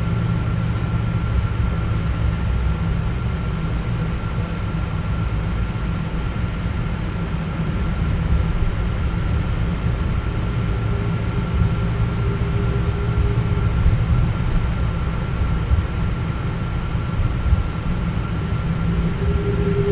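Cabin noise of a Boeing 777-200ER taxiing, heard from a window seat over the wing. A steady low rumble of the Rolls-Royce Trent engines at taxi power and the rolling gear, with a steady high whine over it.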